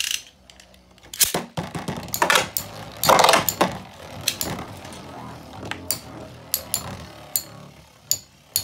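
Two Beyblade spinning tops whirring as they spin across an orange plastic stadium, with repeated sharp clicks and knocks as they collide and scrape against each other. There is a louder scraping burst about three seconds in.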